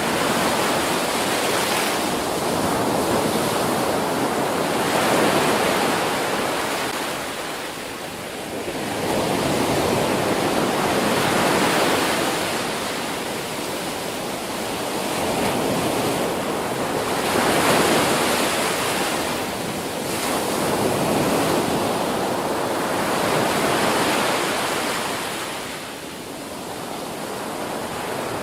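Ocean surf breaking on a beach: a continuous rushing wash that swells as each wave crashes and ebbs between them, about every six seconds, four times.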